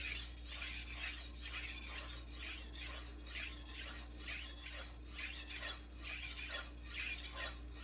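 Steel knife blade being stroked back and forth on an 800-grit Juuma Cobalt Blue waterstone, a rhythmic scratchy grinding at about two to three strokes a second. The stone's surface is drying out a little.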